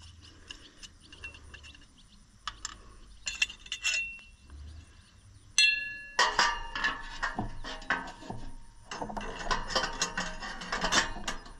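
A 4-inch metal muffler clamp clinking and jangling as it is handled and fitted onto the exhaust. There are a few light clicks, then one sharp ringing clink a little past halfway, then quick, busy metallic clinking.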